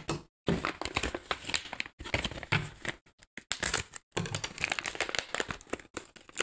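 Clear plastic packaging bag crinkling as it is handled and pulled off a part, in quick irregular crackles with a few brief pauses.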